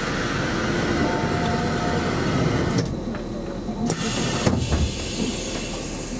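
Stopped commuter train at a platform: a long hiss of air, then two sharp knocks about half a second apart, typical of the train's sliding doors closing.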